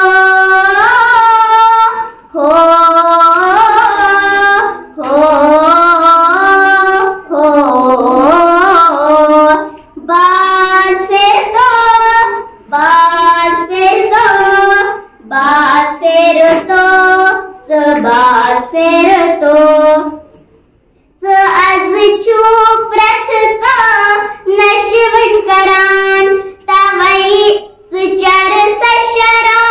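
A young girl singing a Kashmiri nazm unaccompanied, in long sustained phrases, with a short breath pause about two-thirds of the way through.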